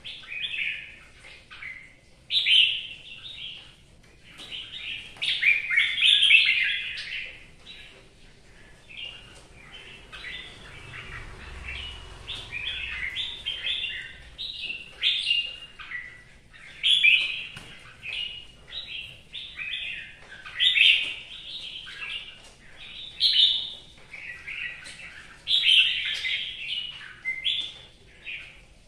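Red-whiskered bulbul singing: loud, bright chirping song phrases in quick bursts every second or two, with a longer unbroken run of song in the middle.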